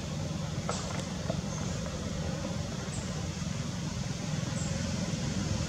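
Steady low rumble, growing a little louder near the end, with faint short high chirps every second or two and a single sharp click under a second in.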